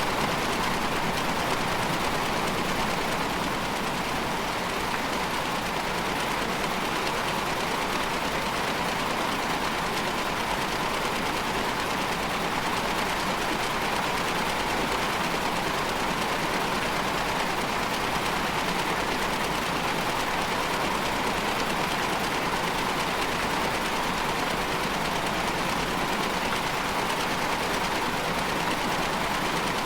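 A steady, dense wash of noise like a machine drone, with a stronger band around 1 kHz; it holds the same level without change or rhythm.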